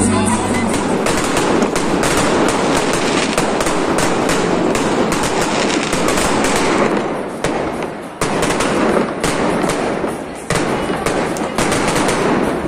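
Fireworks going off overhead: a dense, rapid crackle of bangs and pops, easing off briefly twice in the second half before picking up again.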